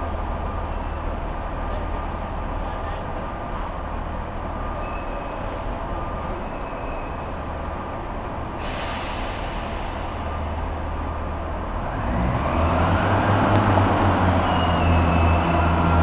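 Class 144 Pacer diesel multiple unit's underfloor diesel engines idling in a steady low drone, with a sudden short hiss about nine seconds in. About twelve seconds in the engines are opened up and the note grows louder and fuller as the unit pulls away.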